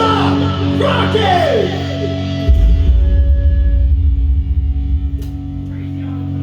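Live rock band playing bending electric guitar lines over held low bass notes. About two and a half seconds in, a heavy low-end hit lands and rings out, fading over the next few seconds.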